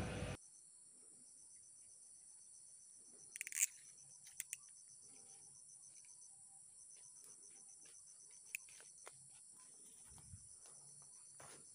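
Steady high-pitched insect chorus, a continuous trill with a faster pulsing trill just below it. A few faint clicks and rustles break in, the loudest about three and a half seconds in.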